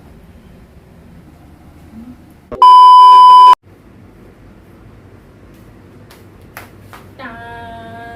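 A single loud electronic beep, a steady 1 kHz tone lasting about a second, starting a little over two seconds in and cutting off sharply.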